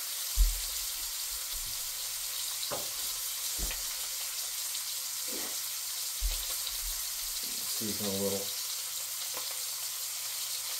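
Steak frying in butter in a pan on the stove, a steady sizzle throughout. A few dull low knocks break in, the loudest about half a second in.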